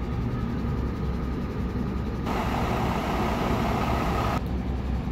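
Hyundai Pavise cargo truck's 280-horsepower diesel engine idling with a steady low hum. A hiss of noise rises over it for about two seconds in the middle and stops abruptly.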